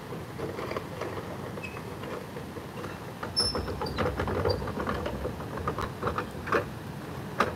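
Wooden canal lock gate being opened: a run of irregular clicks and knocks that thickens about three seconds in, over a low rumble.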